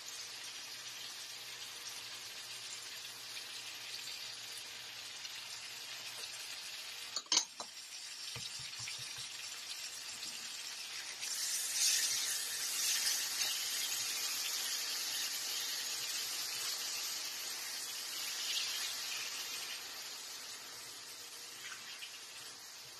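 Onion and spice masala frying in oil in a nonstick pan, a steady sizzle. There is a sharp knock about seven seconds in. The sizzling grows louder at about eleven seconds as yogurt and chopped tomatoes are stirred through with a spatula, then eases off near the end.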